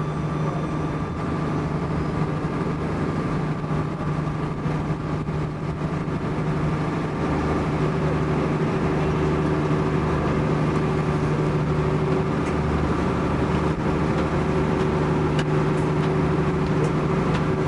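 Engine of a river cruise boat running steadily: a constant low hum, with a few faint clicks in the second half.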